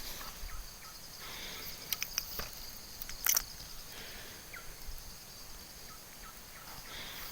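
A steady, faint, high-pitched drone of insects, with a few short clicks or taps about two to three and a half seconds in.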